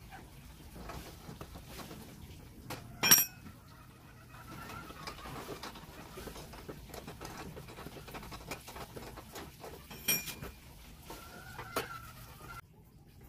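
Metal hand tools clinking during wheel work: a sharp ringing metal clink about three seconds in and another about ten seconds in, with quieter handling and shuffling noise between.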